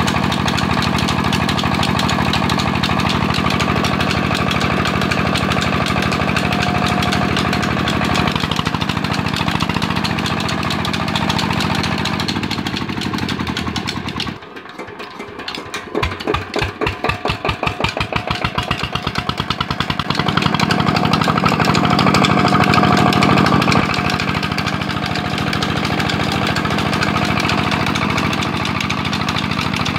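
Single-cylinder diesel engine running steadily, driving a tube-well pump by a flat belt. About halfway through it drops away suddenly, then comes back as separate beats that build up to steady running again.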